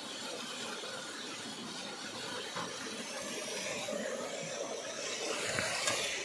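Water gushing from a pipe spout into a tiled basin and running off down a drain channel: a steady splashing hiss.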